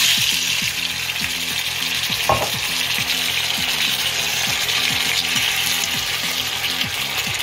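Chopped tomatoes frying in oil in a cast-iron skillet, a steady sizzle as a metal spoon stirs them. One sharp knock about two seconds in.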